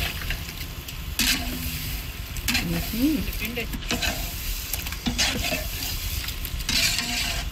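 Chicken sizzling in a large cooking pot as it is stirred, with a scraping stirring stroke about every second and a half.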